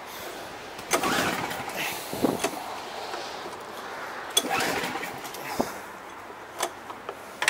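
Two pulls on the recoil starter rope of a Briggs & Stratton snowblower engine, each a short rasp, about a second in and again about four and a half seconds in. The engine does not catch, and the owner has already judged the recoil starter worn out.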